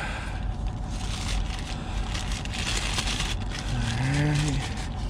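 Packaging being handled and rustled as a dash cam is taken out of its box, over a steady low hum. A man gives a short murmur about four seconds in.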